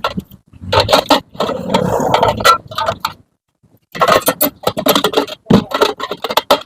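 Metal tools and parts clinking and scraping in quick runs of sharp clicks, breaking off for about a second near the middle.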